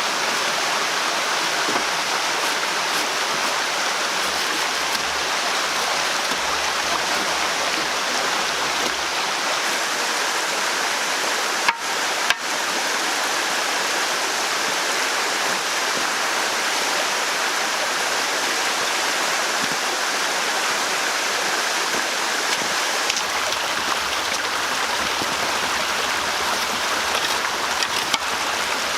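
Steady rushing of running water, an even noise that breaks off twice very briefly a little before halfway.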